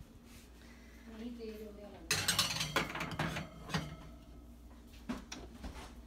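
A metal muffin tin clanking and scraping as it is slid onto a wire oven rack, loudest about two seconds in, with a smaller knock about five seconds in.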